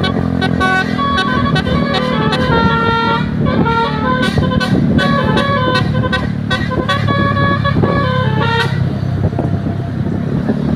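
Bus telolet horns playing a quick melody of short, stepped notes over the steady running of a bus engine. The horn tune stops about nine seconds in, leaving only the engine.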